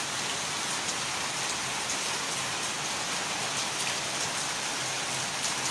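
Heavy rain pouring down steadily, a dense even hiss of falling water.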